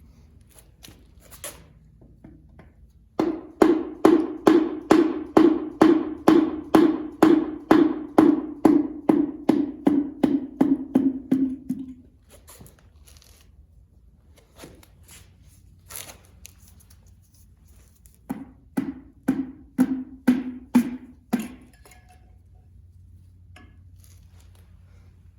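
Hammer blows with a short ringing knock, about three a second in a long run and then a shorter one, driving the pistons of a 1931 Rumely 6A engine out of their cylinders.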